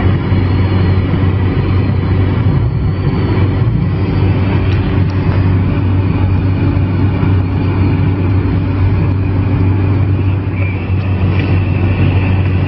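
Steady engine and road drone inside a car's cabin while driving at motorway speed.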